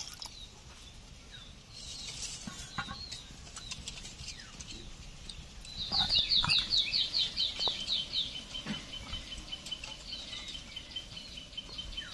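A fast, high-pitched chirping call of about eight short notes a second, starting about six seconds in and lasting some two seconds, trailing off into a run of softer evenly spaced chips. Faint clinks and knocks come before it.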